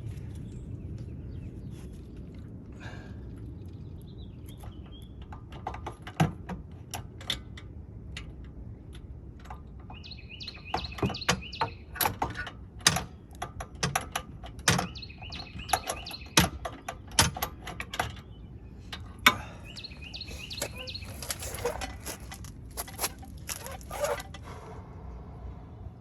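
Irregular metallic clicks and knocks of a socket wrench being worked on the rear hub assembly's mounting bolts, one to three a second in uneven bursts. Birds chirp now and then in the background.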